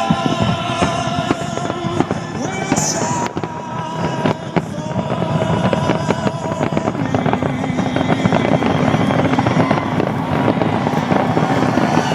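Aerial fireworks bursting and crackling over music from loudspeakers; from about halfway the crackle becomes dense and continuous.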